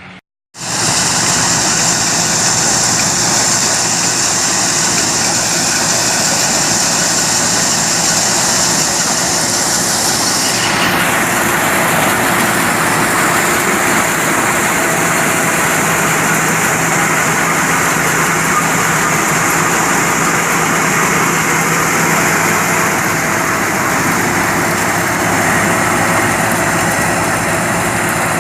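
An engine-driven machine running steadily and loudly, with a constant hum under a broad, harsh noise. About ten seconds in, a high-pitched part of the sound falls in pitch and the mix shifts slightly.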